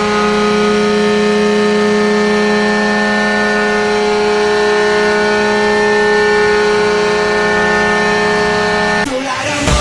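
Atlanta Thrashers hockey goal horn blowing one long, steady blast, which cuts off about nine seconds in.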